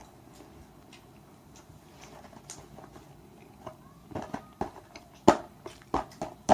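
Quiet room, then from about halfway through a run of sharp clicks and taps close to the microphone, the loudest a little past five seconds in.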